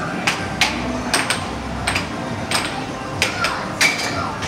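Air hockey puck being hit back and forth on a Dynamo air hockey table: about nine sharp plastic clacks in quick rally over four seconds, over steady arcade background noise.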